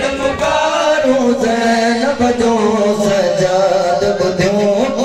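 A male voice chanting a Sindhi noha, a Shia mourning lament, in long drawn-out notes that waver slowly in pitch, sung without a break.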